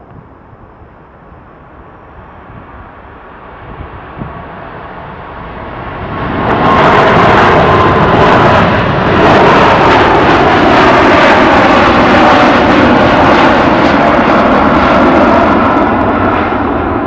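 Boeing 747-8F freighter's four GEnx turbofan engines at takeoff power as it climbs out past the listener: a low rumble that grows over the first few seconds, then becomes loud about six seconds in and stays loud, with an engine whine that falls in pitch as the jet passes.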